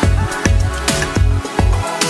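Background electronic dance music with a steady, driving beat.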